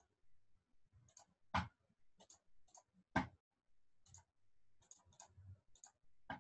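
Scattered faint clicks and taps at an uneven pace, the kind made at a desk with a computer, with two sharper knocks about a second and a half and three seconds in, over a faint low hum.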